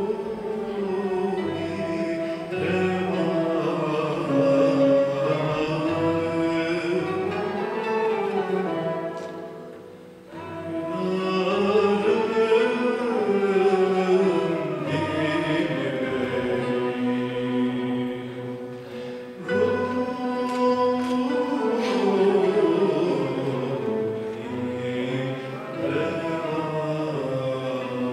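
A Turkish classical şarkı in makam hicaz, sung by a male soloist and mixed choir over a traditional ensemble with oud and violin. The music thins out briefly about ten seconds in, then comes back in full.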